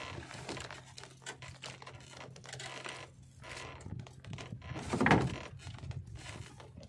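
Fishing handline being hauled in hand over hand in a small boat: scattered rustles and knocks of line and hands against the boat, over a steady low hum, with one louder thump about five seconds in.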